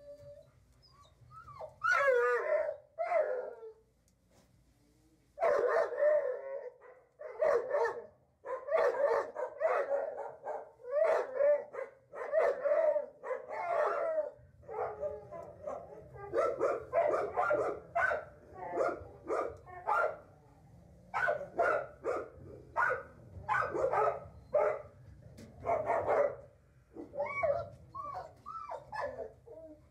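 A dog barking over and over in quick runs of short barks, with a brief pause a few seconds in.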